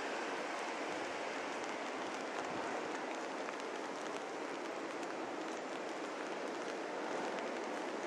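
Rain falling steadily: an even hiss with faint ticks of drops.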